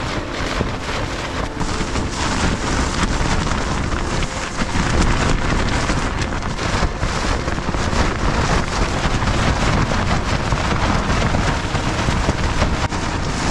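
Gale-force wind buffeting a small backpacking tent, its fabric flapping hard and without let-up, with heavy wind rumble on the microphone.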